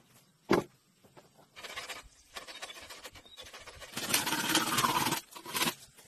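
A green bamboo pole knocks sharply once about half a second in, then rustling and scraping of bamboo and leaves through grass, loudest for about a second from four seconds in, with a short last scrape near the end.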